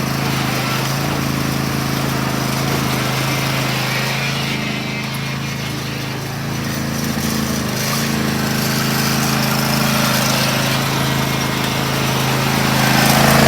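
Small engine running steadily, easing off slightly around the middle and picking up again near the end.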